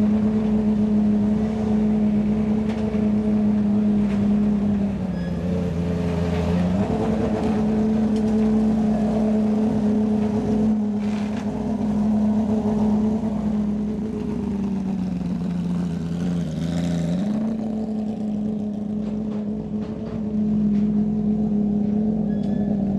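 Rally car engine held at steady revs, its pitch dropping slightly twice, at about five and fifteen seconds in, and coming back up.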